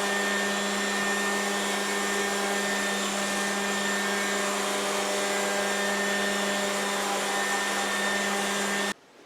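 Electric sander running steadily on a wooden tabletop during final sanding, a constant motor hum under a sanding hiss. It cuts off abruptly near the end.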